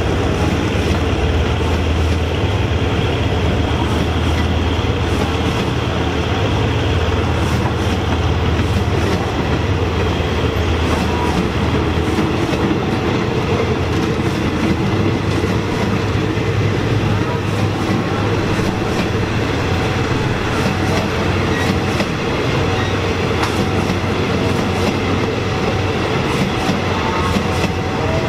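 Passenger coaches of a State Railway of Thailand train rolling past, wheels clacking over the rail joints in an irregular run of clicks over a steady low rumble.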